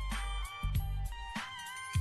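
Background music: an electronic track with a heavy bass line, drum hits and a bending synth or guitar melody.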